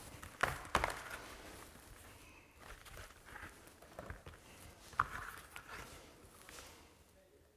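Pleated air filters being handled and butted together edge to edge, their frames giving a few soft knocks and rustles, with one sharper click about five seconds in.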